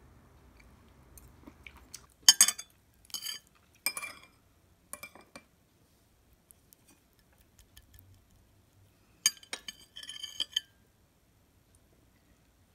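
Metal chopsticks clinking against a ceramic plate and dishes: a few sharp, bright clinks, then another short cluster of clinks later on.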